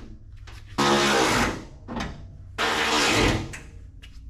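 Cordless impact driver run in two short bursts, about a second in and again near three seconds, as bolts on the truck's radiator core support are driven in.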